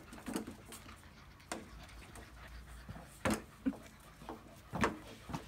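An adult dog and a puppy playing: panting and scuffling, with a few short sharp sounds scattered through it, the loudest about three seconds in and near the end.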